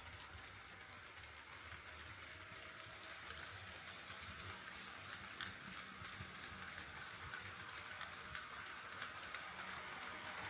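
HO scale model train running on KATO Unitrack: a steady rolling rumble with faint clicks as the wheels cross the rail joints, growing steadily louder as it approaches.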